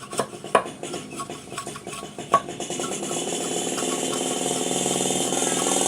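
Hard tools and bamboo being handled, with sharp clicks and knocks, then about halfway a power tool starts up and runs with a steady buzz that grows louder.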